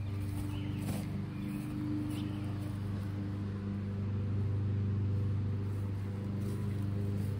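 A steady low engine hum, like a motor running at idle, with a few faint clicks.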